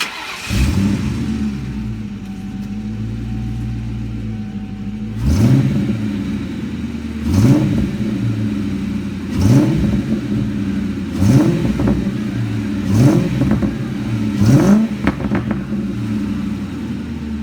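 1997 Ford Mustang GT's engine idling through its aftermarket X-pipe exhaust, blipped six times in quick, rising revs about every two seconds. The exhaust leaks have been sealed with high-temperature RTV, and no exhaust ticking is left: it sounds good now.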